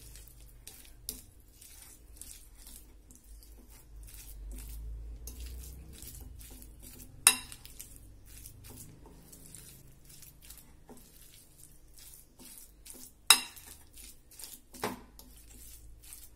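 Orange plastic spoon stirring and scraping a soft mashed banana and coconut mixture around a white bowl, with small clicks against the bowl. Two loud knocks come about seven and thirteen seconds in, and a lighter one soon after the second.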